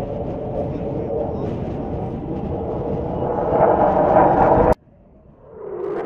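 Jet noise from F-16 fighters flying a formation loop, a steady rushing noise that grows louder toward the fourth second, then cuts off abruptly. After a moment of quiet, jet noise swells up again near the end.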